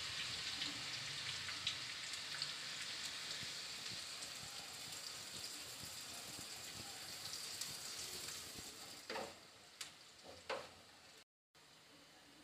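Chopped onions sizzling in hot oil in a non-stick kadai, a steady crackling hiss that slowly weakens, then dies down sharply near the end with a few brief knocks.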